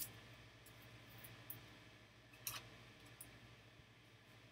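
Near silence with a few faint, short clicks, the clearest a little past halfway: a trading card and a rigid plastic top loader being handled.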